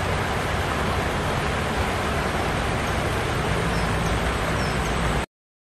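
Shallow river water running over rocks, a steady rushing noise that cuts off suddenly about five seconds in.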